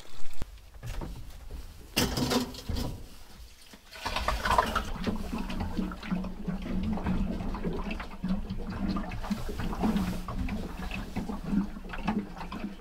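Water pouring and gurgling into a caravan's fresh-water tank from a large plastic water jug. There are a few knocks in the first couple of seconds, then a steady gurgling flow from about four seconds in.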